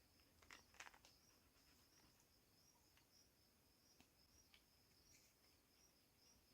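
Faint, steady insect chirping, high-pitched and evenly pulsed, with a couple of faint clicks about a second in.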